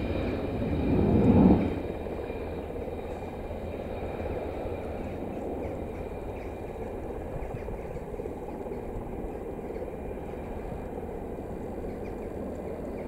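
F-15 fighter jet's twin turbofan engines during the landing rollout. A louder surge comes in the first second and a half, then the sound settles to a steady, lower jet rumble.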